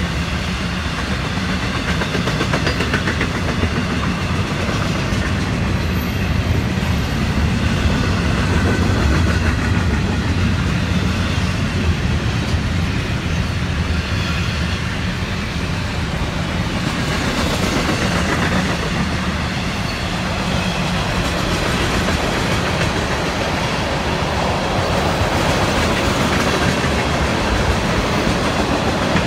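Freight train cars rolling past close by: a steady rumble of steel wheels on the rails, with double-stack container well cars followed by tank cars.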